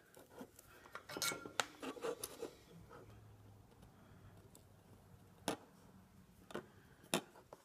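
Light metallic clicks and taps from soldering tools and a small circuit board being handled on the bench. There is a quick cluster of clicks, then three single clicks about a second apart near the end.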